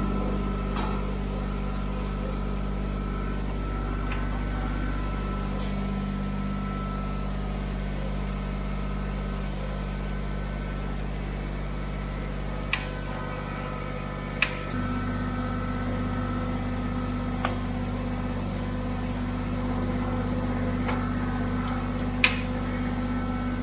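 Kubota BX23s tractor's three-cylinder diesel engine running steadily, its note changing about fifteen seconds in, with a few sharp knocks heard over it.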